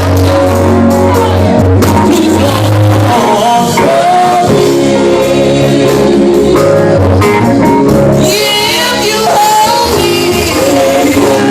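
Gospel group singing with a band, voices over steady bass and instruments.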